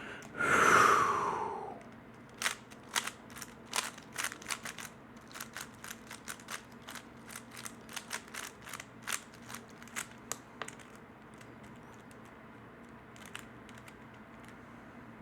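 A loud rushing, breath-like sound falling in pitch, then a 3x3 Rubik's Cube being turned quickly by hand for about eight seconds: a run of sharp plastic clicks at uneven spacing that stops well before the end.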